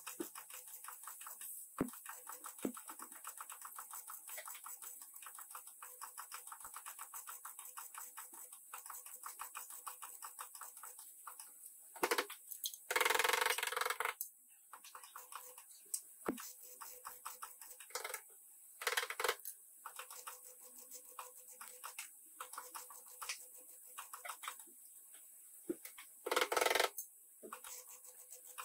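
MIG welding torch stitch-welding a car's rear body panel: a fast, spitting crackle in short runs with brief pauses between welds, and two louder, fuller bursts, one near the middle and one near the end.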